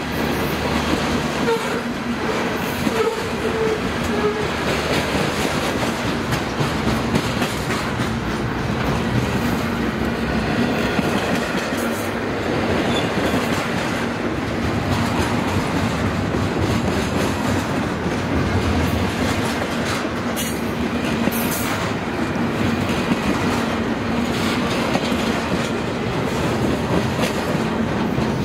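Union Pacific double-stack container cars rolling past, their steel wheels running on the rails with a steady rumble and clatter.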